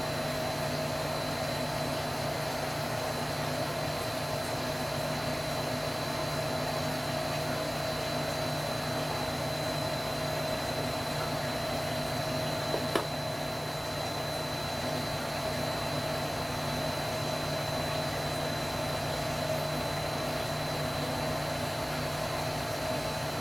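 Steady hum and hiss of a running machine, holding a few constant tones, with one faint click about 13 seconds in.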